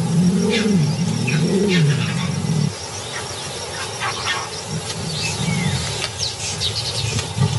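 A troop of baboons screaming in alarm, many short, high, overlapping shrieks and squeals. A low, wavering sound runs under them for the first few seconds and then drops away.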